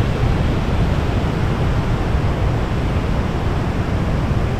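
Waterfall: a steady rush of falling water with a heavy low rumble, even throughout.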